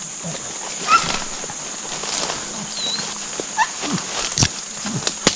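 Hunting dogs whining and yelping in short, scattered calls, with twigs and brush snapping underfoot, over a steady high hiss.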